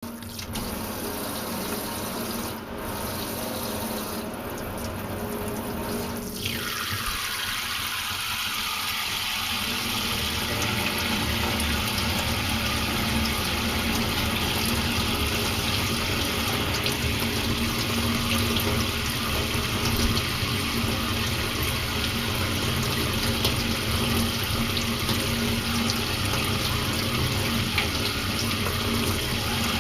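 A steady rush like running water, growing fuller after a falling sweep about six seconds in.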